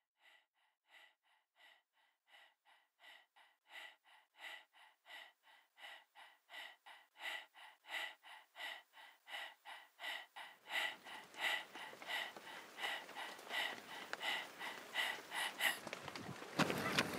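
A runner's rhythmic, hard breathing, about two breaths a second, fading in from silence and growing louder. About halfway a steady outdoor hiss comes in, and sharp footfalls on a dirt road start near the end.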